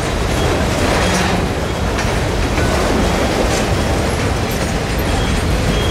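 Freight cars rolling past close by: a steady, loud rumble and clatter of steel wheels on rail.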